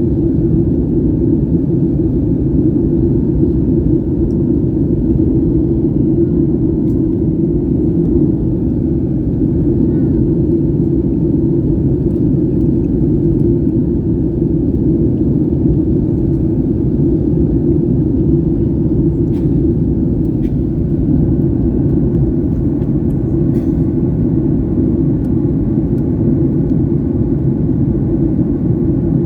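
Steady low drone inside the cabin of a Boeing 737 MAX 8 in flight: engine and airflow noise heard from a window seat near the rear, with a few faint clicks in the second half.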